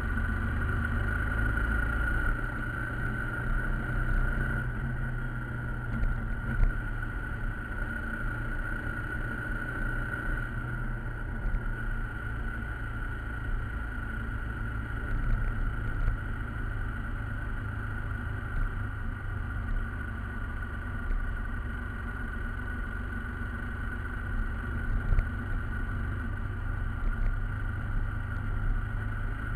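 Motorcycle under way on the road: steady engine and road rumble with a steady high whine above it.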